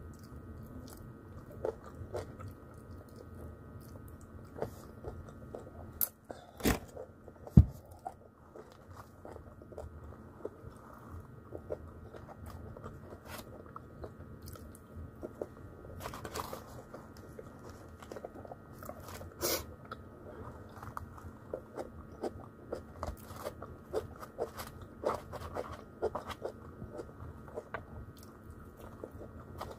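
Close-up eating sounds of a person biting and chewing fried chicken, with many small irregular mouth clicks. A few sharp knocks stand out, about six to eight seconds in and again near twenty seconds.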